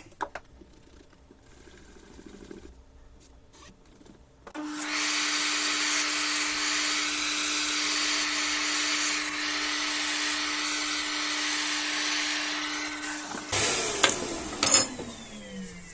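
A small high-speed electric motor starts about four and a half seconds in with a strong rush of air and a steady hum, runs evenly for about nine seconds, then switches off and spins down with falling pitch. Faint handling clicks come before it.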